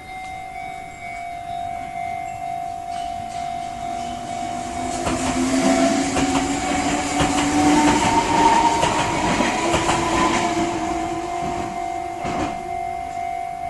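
Enoden electric train passing over a small level crossing, its wheels clattering and its motor whining with a slowly rising pitch. The sound swells to its loudest midway and fades toward the end. Under it the crossing's warning bell dings in a steady, even beat.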